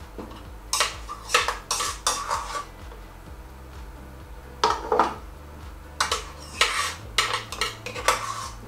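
A utensil scraping and clinking against the stainless-steel bowl of a Moulinex food processor as beetroot purée is scooped out, in several short clattery spells with pauses between.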